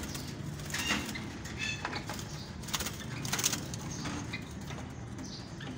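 Doves flapping their wings inside a wire cage in several short flurries.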